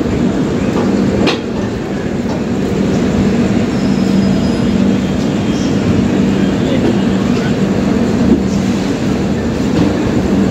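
LHB passenger coaches of an express train rolling slowly past close by: a steady rumble of wheels on rail with scattered clicks, one sharp clack about a second in and a smaller knock near the end, over a steady low hum.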